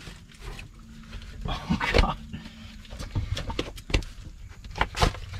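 A person squeezing through a narrow limestone crevice: body, clothes and a selfie stick scuffing and knocking against the rock, with strained breathing. There are several sharp knocks, the loudest about two seconds in.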